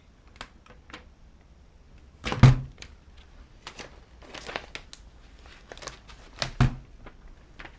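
Protective plastic film being peeled off a new laptop LCD panel: a run of short crinkles and crackles, with two louder handling knocks about two and a half seconds in and again about six and a half seconds in.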